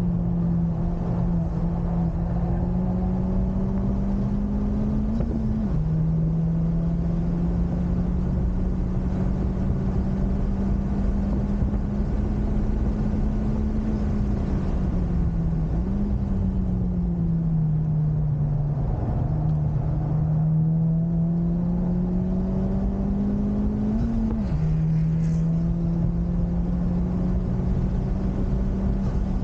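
Honda Civic Type R FK8's turbocharged 2.0-litre four-cylinder engine pulling hard on track over steady road noise. Its note climbs slowly and drops sharply twice at gear changes, once early and once near the end, and in the middle it falls away and jumps back up.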